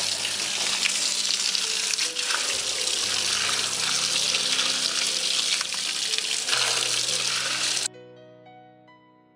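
Water running full from an outdoor spigot and spraying onto a metal computer case, a steady hiss over soft background music. The water sound cuts off suddenly near the end, leaving the music.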